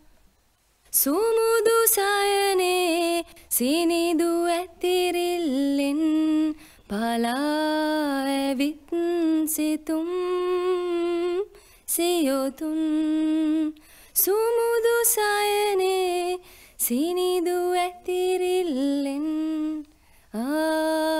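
A woman's solo voice singing a slow, lullaby-like melody with no accompaniment. She holds long notes and glides between them, in phrases broken by short breaths. The singing begins about a second in.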